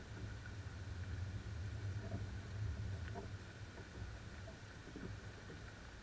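A few short, soft grunts from a herd of feeding wild boars, a couple of seconds in and again near the end, over a low wind rumble on the microphone.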